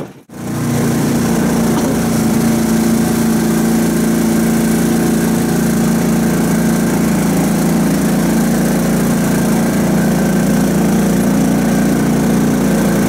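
Karakat all-terrain vehicle's engine running at a steady speed, cutting in abruptly just after the start.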